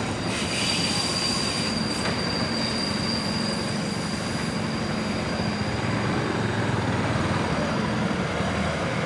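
923-series Shinkansen Doctor Yellow test train rolling past, its wheels squealing in a thin, steady high tone over the running noise; the squeal fades out about two-thirds of the way through. A lower rumble begins to grow near the end.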